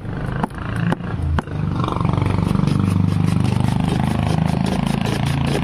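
A block of ice is shaved by hand on a wooden ice-shaving box, a fast, even run of scraping strokes that starts about two seconds in. A few sharp knocks come first, and a steady low hum runs underneath throughout.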